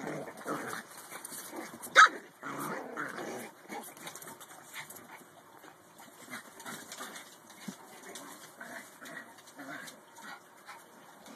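Small Chihuahua-type dogs play-fighting, with yips and scuffling, busiest in the first few seconds and sparser after. One sharp, loud sound about two seconds in.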